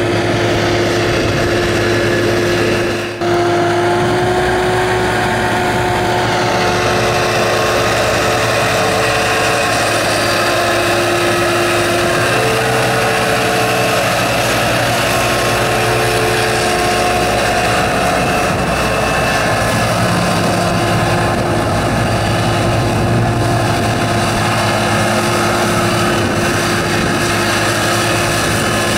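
The 275-horsepower Cummins engine of an amphibious manure-lagoon agitation boat running steadily under load, driving its pump and churning the slurry. The level dips briefly about three seconds in, and the engine's pitch shifts slightly a few times.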